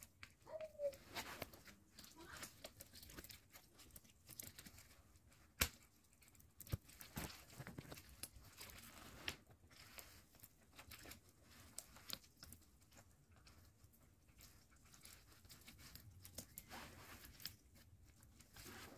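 Faint, irregular rustling and small clicks of hands at work wiring a lemon bonsai, wire and leafy branches being handled, with one sharp click about five and a half seconds in.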